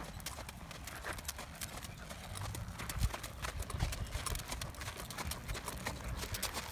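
Hooves of a trotting horse striking a sand-and-gravel arena surface in a steady run of hoofbeats.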